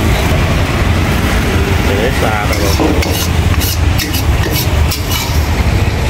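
A metal spatula scraping and knocking against a steel wok as stir-fried food is scooped onto a plate. Several sharp scrapes and taps come a little past halfway, over a loud, steady low rumble.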